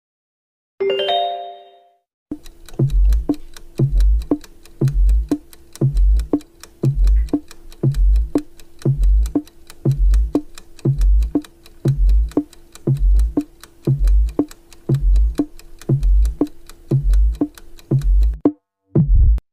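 Countdown timer music: a short chime about a second in, then a steady ticking beat with a low thump about once a second over a held tone, keeping time with the seconds counting down. It cuts off near the end, followed by a brief low hit.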